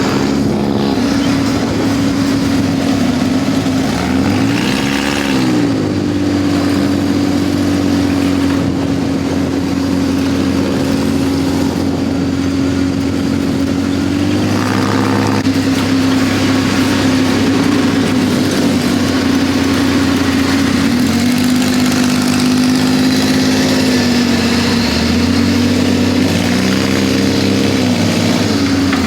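ATV engine running steadily at riding speed. Its pitch dips and climbs back a few times as the throttle is eased and opened again.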